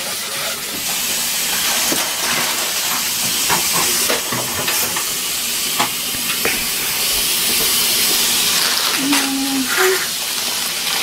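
Kitchen tap running steadily into the sink, a continuous hiss of water as a pot is rinsed out, with a few small knocks and clicks of handling on top.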